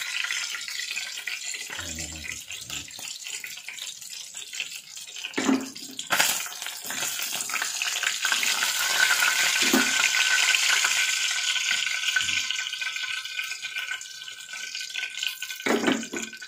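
Tulingan (bullet tuna) frying in hot oil in an aluminium wok, a steady sizzle. The wooden spatula and metal spoon knock against the pan a few times as the fish are turned and lifted out.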